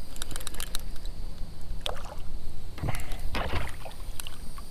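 A small largemouth bass splashing at the surface beside a kayak as it is reeled in and landed, with small clicks and knocks from the reel and handling in the first second.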